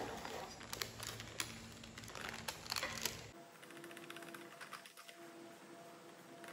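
Parchment paper liner crinkling and rustling as it is peeled off a baked sponge cake, a run of small clicks for about three seconds; after that the sound drops to faint steady tones.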